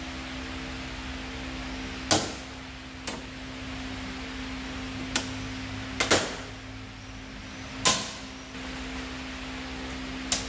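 Steady hum with one constant tone, broken by about seven sharp clicks and knocks, the loudest about two seconds in and around six and eight seconds in.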